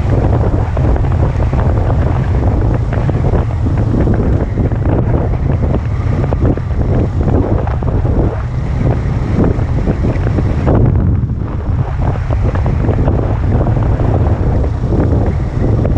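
Heavy wind buffeting on the microphone of a camera mounted on a moving motorcycle, a continuous low rumble with irregular gusts and road and engine noise mixed underneath.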